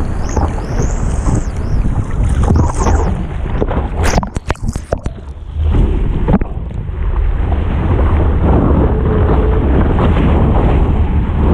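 Wind buffeting the microphone over the sound of ocean surf, with a short break of crackling clicks about four seconds in before the wind rumble comes back.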